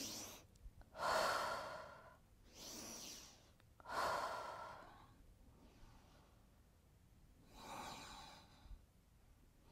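A woman breathing hard in and out through a set of knee push-ups, about five breaths, each a short rush of air, the loudest about a second in and about four seconds in. The breaths follow the movement: in on lowering, out on pressing up.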